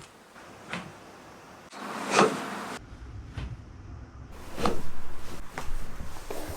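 Chiropractic neck and back adjustments: about six sharp joint cracks in quick succession, roughly one a second, from separate treatments edited together. The loudest comes about two seconds in, with another strong one near the middle.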